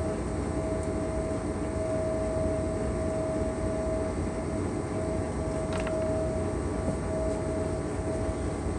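Steady mechanical drone with a constant mid-pitched hum tone running through it, with a faint click about six seconds in.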